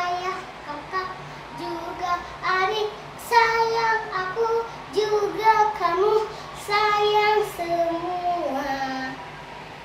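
A young girl singing a children's praise song solo, in short phrases with held notes.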